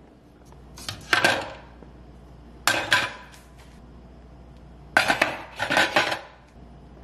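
Metal kitchen parts, a stainless drip-tray grate and a black-handled metal piece, clinking and clattering as they are set down in a bowl, in three bursts: about a second in, around three seconds in, and a longer rattle from about five to six seconds.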